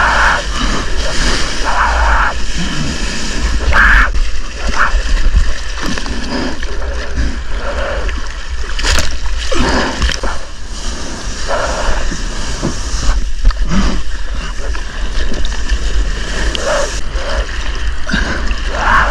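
Water splashing and gurgling around a surfboard being paddled through chop, heard close to a nose-mounted camera, over a steady low rumble.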